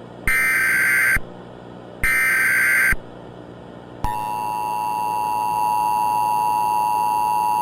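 Emergency Alert System tones: two short bursts of the screeching SAME header data signal, each just under a second long, then about four seconds in the steady two-tone EAS attention signal starts and holds.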